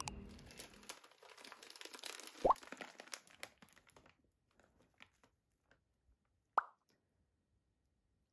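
Plastic snack packets and a sticker sheet in a plastic sleeve crinkling and rustling as they are handled, dense for about four seconds, then a few scattered crackles. Two sharp clicks stand out, one about two and a half seconds in and one about two-thirds of the way through.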